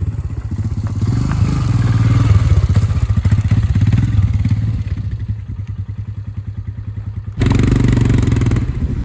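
Royal Enfield Himalayan single-cylinder motorcycle engine running with a pulsing exhaust beat while riding a rough road; it pulls harder for a few seconds, then eases off. Near the end the sound suddenly gets louder with a rush of noise.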